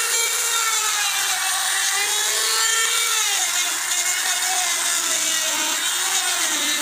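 Handheld trimmer router running at full speed, its bit cutting a hinge recess into a wooden door frame. The motor's whine wavers in pitch as the bit bites into the wood.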